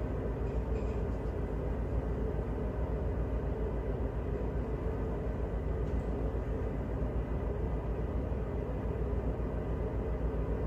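Tugboat's diesel engines running steadily, heard inside the wheelhouse as a constant low rumble with a faint steady hum above it.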